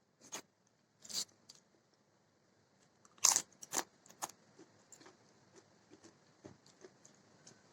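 Crunchy food being bitten and chewed close to the microphone: several sharp crunches, the loudest about three seconds in, then softer scattered chewing clicks.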